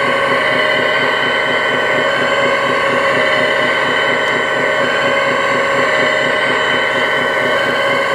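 Hydraulic pump of a radio-controlled excavator running steadily while the arm digs and swings: a whine of several held tones over a fast, even churning.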